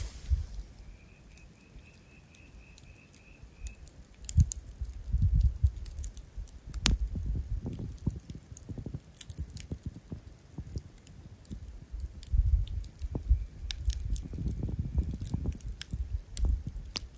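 Wood campfire crackling, with sharp irregular pops and snaps over a low rumble. A faint rapid chirping call sounds about one to four seconds in.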